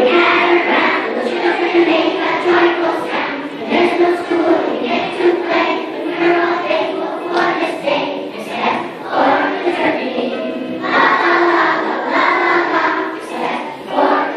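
A choir of first-grade children singing a song together.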